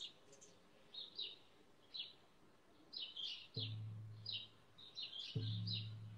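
Birds chirping in quick, repeated calls. About three and a half seconds in, a hand frame drum struck with a beater starts a slow beat: two deep strikes about two seconds apart, each ringing on until the next.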